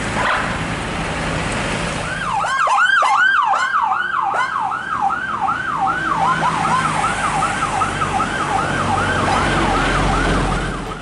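A siren sounding a fast rising-and-falling yelp, about two cycles a second, starting about two seconds in, over a low traffic rumble.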